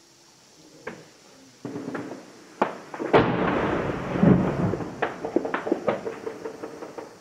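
Distant shelling and gunfire: a few sharp cracks, then a heavy blast about three seconds in that rumbles on for several seconds. A quick run of single sharp shots follows near the end.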